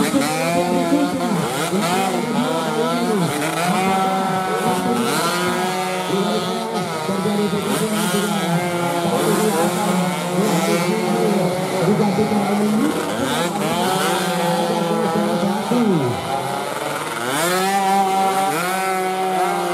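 Several two-stroke 116cc underbone racing motorcycles running hard past and through a corner, their engine notes overlapping and gliding up and down in pitch as they rev, back off and pull away. One engine's pitch drops sharply as it passes about sixteen seconds in.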